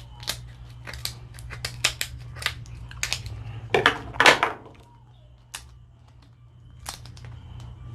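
Dungeness crab shell being cracked and picked apart: a quick run of sharp cracks and snaps, the loudest about four seconds in, then only a few scattered clicks.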